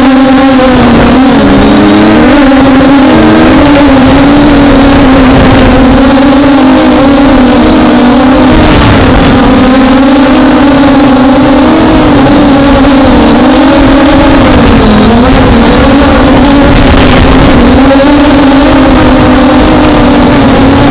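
The MJX Bugs 5W quadcopter's brushless motors and propellers buzzing loudly in flight, with a thin high whine over the main tone. The pitch dips and wavers every few seconds as the motors change speed to hold the drone steady against gusty wind of about 30 km/h.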